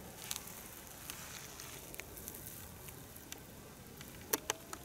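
Faint crackling of footsteps on dry straw mulch along a garden path, with a few sharp clicks near the end.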